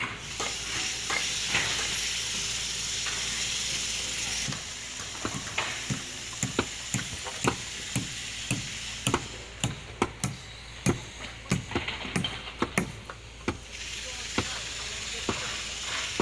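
Construction site work sounds: a steady hiss for the first four seconds or so, then irregular sharp knocks, about one or two a second.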